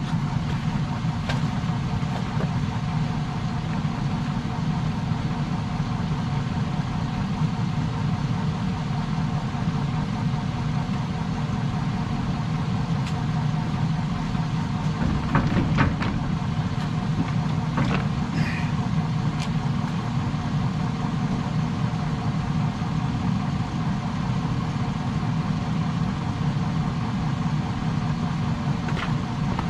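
GMC pickup truck's engine idling steadily as the truck is backed slowly out of the snow plow's mount, with a few sharp clicks and clanks about halfway through.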